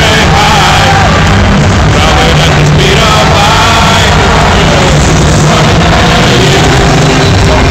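Loud rock music with a crowd singing along and yelling, so loud that it is pinned near full level.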